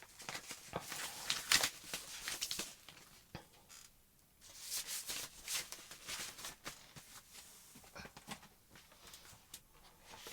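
Rustling and soft clicks of paper record sleeves and vinyl LPs being handled as a record is slid out of its sleeve, coming and going with a short lull about four seconds in.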